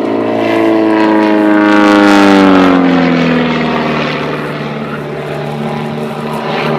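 Pitts Special S-1S biplane's 180 hp engine and propeller running at power, its note falling over the first three seconds and then holding steady and lower as the aircraft pulls up into a loop.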